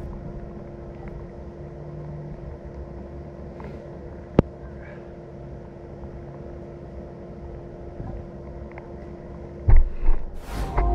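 A steady low hum with one sharp click about four seconds in, then loud knocks and a rustle near the end as the camera is handled.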